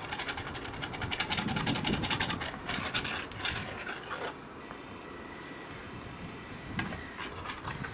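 A metal fork-spoon scraping and clicking against a steel mess-kit pan as scrambled eggs and bacon are stirred, a quick run of scrapes and clicks that stops about four seconds in.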